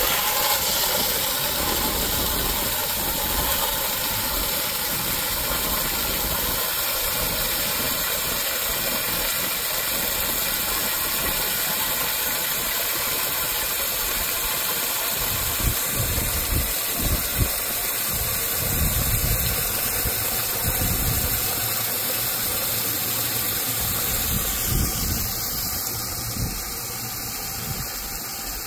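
Vehicle engine running steadily after starting up, with an even hiss over it and some low rumbling bumps in the second half.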